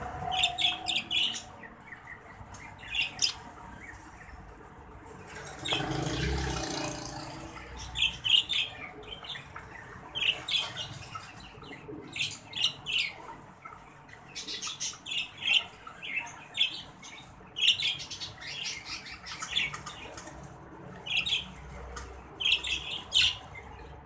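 Caged exhibition budgerigars chirping and chattering in clusters of short, high calls. About six seconds in, a broad rush of noise lasts roughly two seconds.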